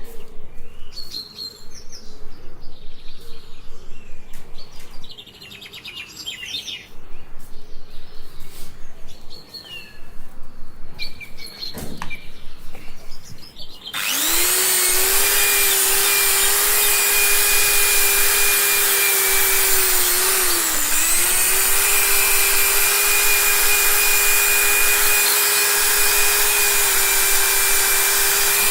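Birds chirp at first. About halfway in, an electric power tool starts up and runs with a steady high whine, its pitch sagging briefly once as it takes a load.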